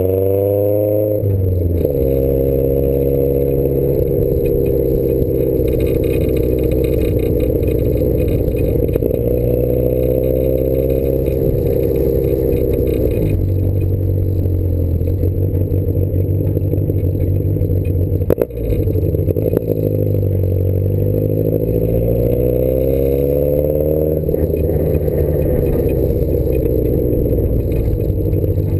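Triumph sports car's engine, heard from inside the cabin and driven hard, revving up and easing off over and over. The pitch drops sharply at gear changes about a second in and again around thirteen and twenty-four seconds. A single sharp knock comes about eighteen seconds in.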